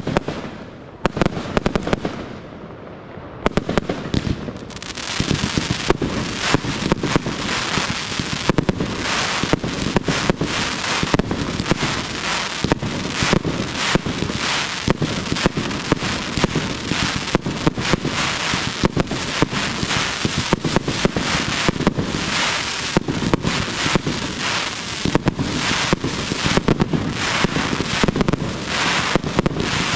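Fireworks display: a few bangs, a short lull, then from about five seconds in a dense, continuous barrage of bangs and crackling.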